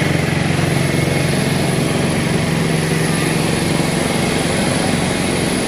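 Steady drone of a SpiceJet airliner's engines: an even hiss over a constant low hum, with no change in pitch or level.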